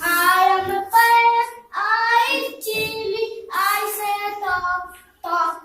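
A child singing high-pitched, drawn-out syllables, about six or seven in a row with short breaks between them.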